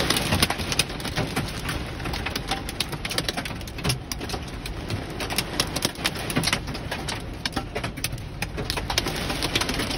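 Hail and heavy rain hitting a car's windshield and roof, heard from inside the car: a dense, irregular patter of sharp clicks and knocks over a steady hiss.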